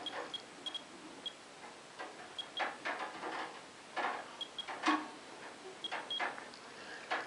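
Radex RD1008 dosimeter giving short high beeps at irregular intervals, one for each particle it counts, over several knocks and rustles from handling. The beeps come from raised radiation from radon-222 decay products washed down by rain.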